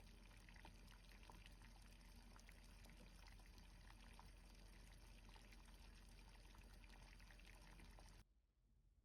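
Faint, steady sound of flowing water with small ticks in it, cutting off suddenly about eight seconds in.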